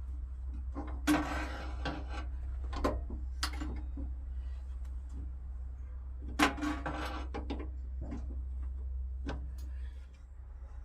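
Wooden knocks and clatter: pieces of timber being handled and set down, about seven sharp knocks, the loudest just after a second in and about six seconds in. A steady low hum runs underneath and stops near the end.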